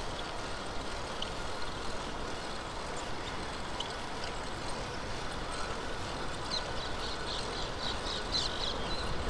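Steady rush of strong wind, with a few single high chirps from a small bird and then a quick run of high bird notes near the end.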